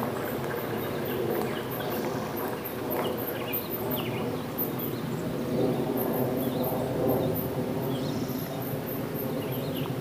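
Woodland ambience: insects chirping very high in short repeating runs, with small birds chirping now and then, over a steady low hum.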